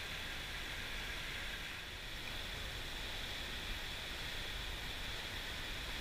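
Steady rush of fast-flowing mountain stream water, an even hiss that holds at one level throughout.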